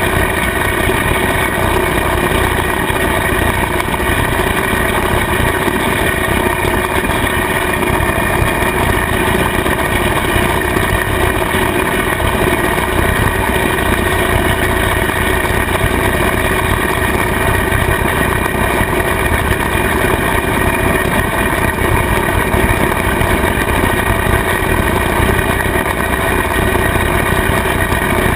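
Kubota tractor engine running steadily under load while driving a rotary cutter (bush hog) mowing pasture grass, the mower's spinning blades and gearbox adding to the drone.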